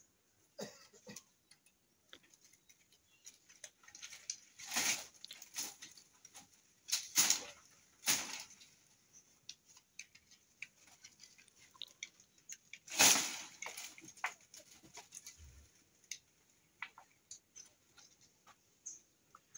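Dry banana leaves rustling and crackling in short, scattered bursts as a pole is pushed and worked up through the banana plant, the loudest burst near the end.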